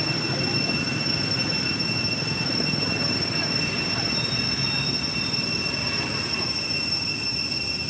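A steady, high-pitched whine held at one pitch over a constant low rumbling background, unchanging throughout.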